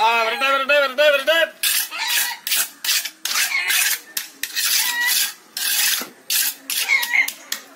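Straight-edge and trowel scraping across wet concrete in quick, repeated rasping strokes as a fresh floor is levelled. A wavering call sounds over the first second or so.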